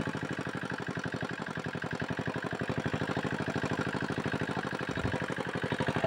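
Small engine running steadily at an even idle, a fast, regular putter.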